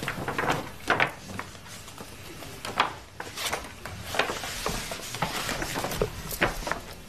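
Rustling and crinkling of a paper gift bag being rummaged through by hand, with scattered light knocks and clicks.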